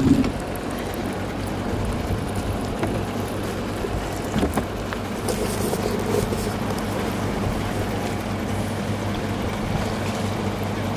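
Boat's outboard motor running steadily, with wind and water noise; a brief knock right at the start.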